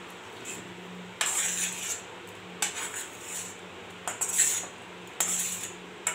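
A spatula scraping the inside of a metal kadai, about five separate strokes each around half a second long, as the last of a chicken curry is scraped out into a pressure cooker.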